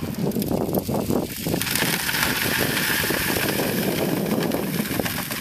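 Dry sand and gravel concentrates tipped off a Keene drywasher's aluminium riffle tray into a plastic bucket. The first second and a half is clattering and knocking, then a steady hissing pour, with the drywasher's small blower engine running underneath.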